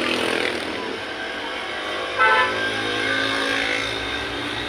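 Road traffic running steadily, with a short vehicle horn toot about two seconds in.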